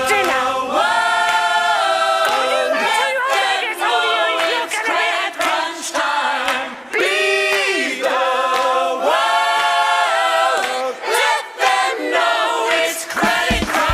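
Choir singing without instrumental accompaniment, in held notes about a second long that slide between pitches.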